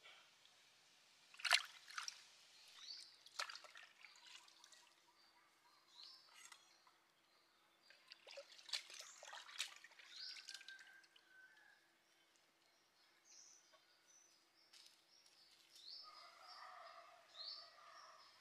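Water splashing and dripping in a pot as a squid is washed by hand, in a few short separate splashes. Small birds chirp in the background.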